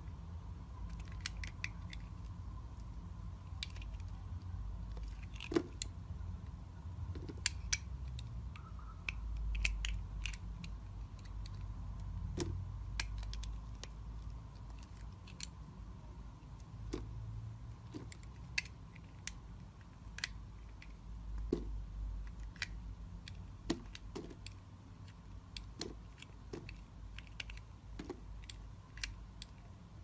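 Blade cutting into a bar of marbled soap, with scattered sharp, crisp clicks and cracks as the soap is sliced and small pieces break away, over a low handling rumble.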